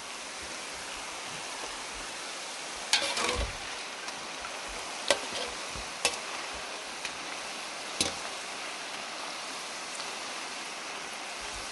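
Tortilla chips frying in very hot oil in a disco (plow-disc pan), a steady sizzling hiss. A few sharp clinks break it as a metal skimmer knocks against the pan.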